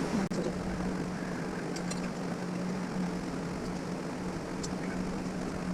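A steady low mechanical hum at one even pitch, with a few faint clicks.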